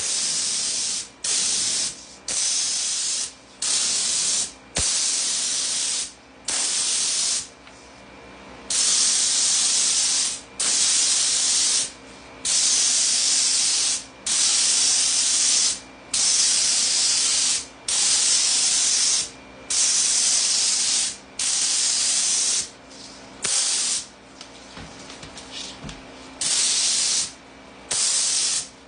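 HVLP spray gun hissing as satin lacquer is sprayed onto cabinet panels, in repeated trigger pulls of about half a second to a second and a half with short gaps between them. A steady lower hum continues between the pulls.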